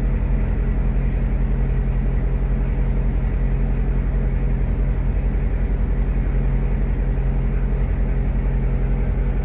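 C7 Corvette's V8 engine idling steadily, a low, even, fast-pulsing drone.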